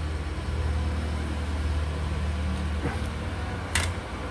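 Steady low hum, with a faint click about three seconds in and a sharper click near the end.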